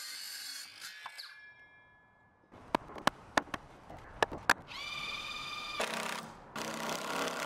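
Power tool work while fitting wooden blocking: a motor winding down with a fading ringing tone, then a handful of sharp knocks, then a power tool's motor whining steadily for about a second, with more motor running near the end.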